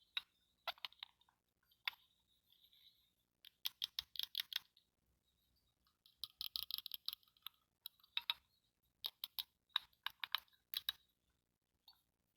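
Small plastic toy pieces clicking and tapping as they are handled, in bursts of quick clicks with short pauses between.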